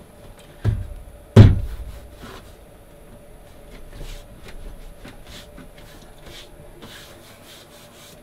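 Two dull thumps as an MDF blank is pressed down onto a glued, taped board, the second the louder, followed by light taps and scuffing of hands pressing and smoothing the board in place.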